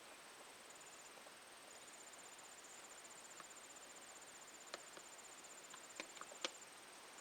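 Near silence: a faint, high, rapidly pulsing chirp runs through most of it, with a few soft clicks near the end.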